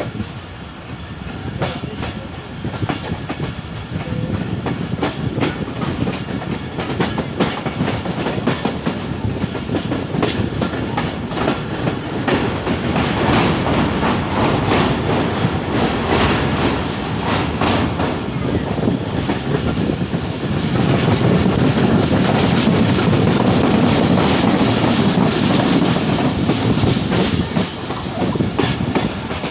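Moving passenger train's carriages rumbling along the track, the wheels clattering over the rail joints with many clicks. The rumble grows louder for several seconds past the middle.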